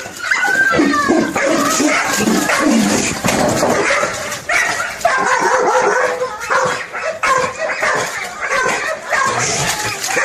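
Young hunting dog baying at a wild boar: rapid, unbroken barking.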